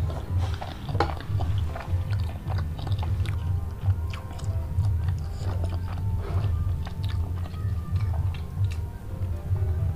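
Close-miked chewing and wet mouth clicks of someone eating, over background music with a steady pulsing bass. Near the end she drinks from a cup.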